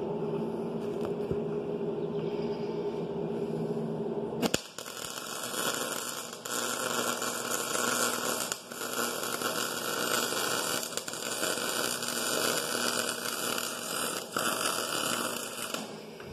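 MIG welder: a steady electrical hum, then about four and a half seconds in the arc strikes with a click and crackles and hisses for about eleven seconds with a few short breaks, tack-welding a press-fitted gearbox third gear to its shaft so it cannot spin.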